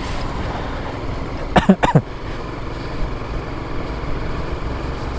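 Motorcycle riding along a road: the engine running under steady wind and road noise. A little over a second and a half in, two short tones fall quickly in pitch.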